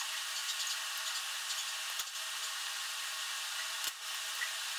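Ripe bananas being peeled by hand and broken into a glass bowl: faint rustling with two soft clicks, about two seconds in and near four seconds, over a steady hiss.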